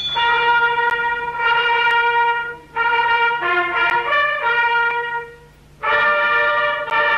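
Trumpets playing a slow solemn melody of long held notes in phrases with short breaks, with a quicker run of notes about three seconds in, as music for the elevation of the host just after the consecration at Mass.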